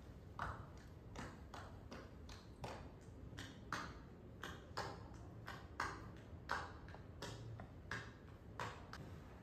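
Steady, even ticking: light clicks at about three a second, over a low room hum.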